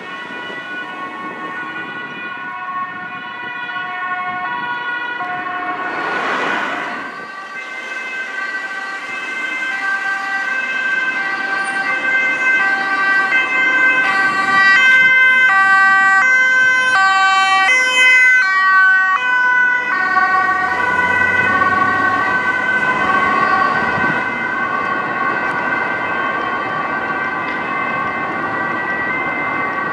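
Ambulance two-tone sirens sounding, first more distant, then growing loud as an ambulance approaches and passes, with the high and low tones clearly alternating about twice a second. Traffic noise lies under the sirens, with a brief rush of noise about six seconds in.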